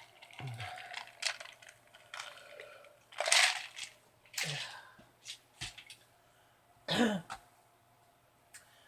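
A woman coughing and clearing her throat a few times, with short pauses and small sharp clicks in between.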